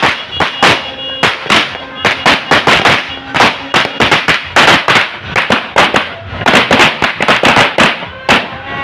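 Firecrackers exploding in quick, irregular succession, several sharp bangs a second, none stopping for long, with music playing underneath.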